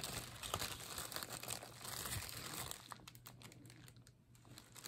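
Plastic bag crinkling, with fine crackles and small clicks as jewelry is handled in it, dying away about three seconds in.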